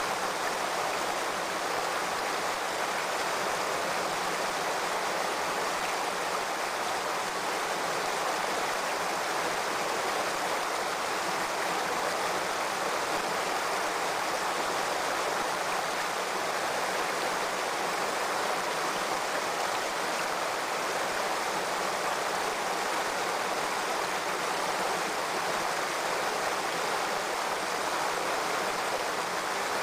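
Water of a shallow, rocky stream running over stones: a steady, unbroken rush.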